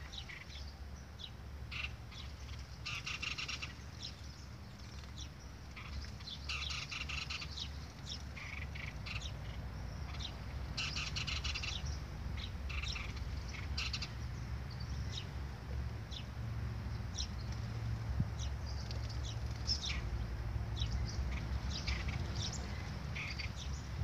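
Small birds chirping repeatedly around a backyard water basin, short high chirps throughout with denser bursts a few times. A steady low rumble runs underneath.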